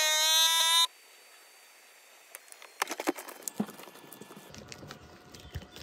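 Cabela's commercial-grade vacuum sealer running with a loud, steady high whine that cuts off sharply just under a second in. After a short quiet, the plastic vacuum bag rustles and light clicks and taps follow as the next bag is laid on the sealer.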